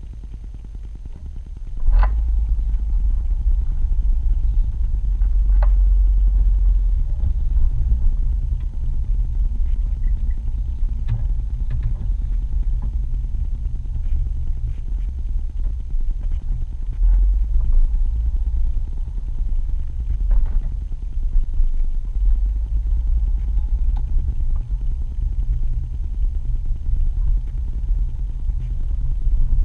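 Low rumble of a car driving slowly, heard from inside the cabin, growing louder about two seconds in, with a few light knocks and rattles.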